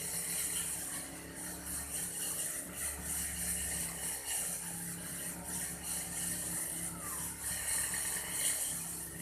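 Old Aldo brush cutter running steadily while cutting grass, with a hiss from the cutting head that swells and fades in short strokes.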